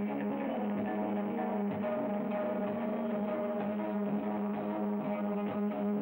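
Rock band playing an improvised, droning jam: one loud low note held without a break, with electric guitar and frequent percussion strikes over it.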